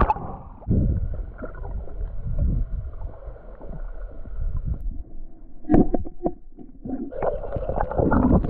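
Water sloshing and a low rumble around a small boat at sea, then several sharp knocks and clatter in the second half.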